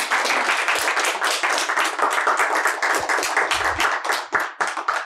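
Audience applauding, with many hands clapping at once. The clapping thins out to a few separate claps near the end.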